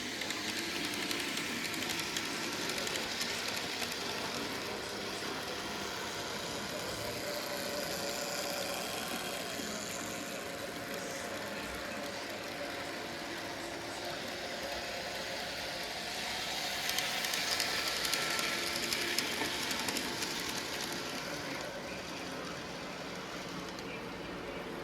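OO-gauge model train running on its track: a steady motor whine with wheel hiss and small clicks from the rails, growing louder about two-thirds of the way through, then easing off.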